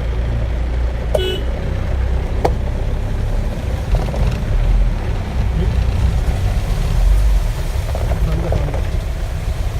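Vehicle on an off-road track, heard from inside: a steady, loud low engine and road rumble, with a brief pitched squeak about a second in and a sharp click about two and a half seconds in.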